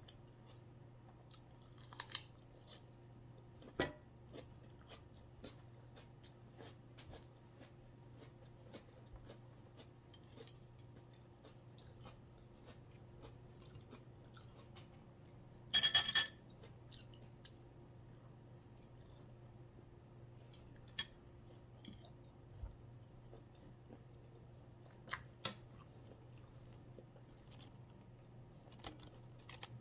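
Close-up eating sounds: chewing with small crunches and wet clicks, and a few sharper knocks. About halfway through comes the loudest sound, a short ringing clatter like a utensil against a dish. A low steady hum runs underneath.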